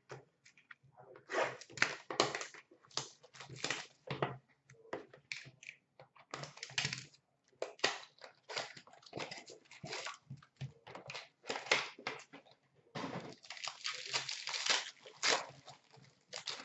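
A hockey card pack's wrapper being torn open and crinkled in the hands, with the cards rustling as they are handled: a run of irregular crackles and rustles.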